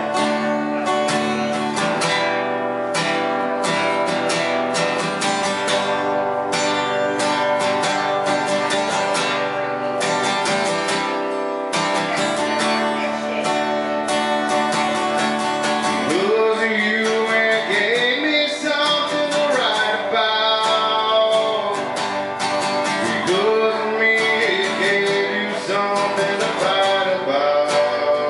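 Acoustic guitar strummed in a steady rhythm, with a man's voice beginning to sing along about halfway through.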